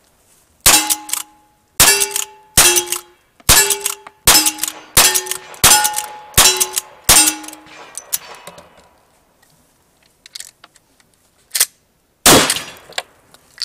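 Lever-action rifle fired about nine times in quick succession, roughly a shot a second, each shot followed by the clear ring of a struck steel target. After a pause with a few clicks, a single loud shotgun blast near the end.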